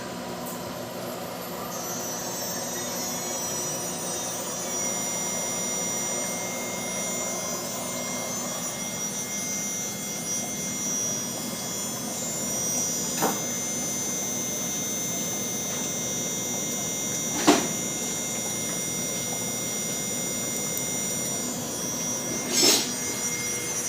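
CNC router milling aluminum: a steady high spindle whine over continuous cutting noise, broken three times by a sharp knock, the second one loudest.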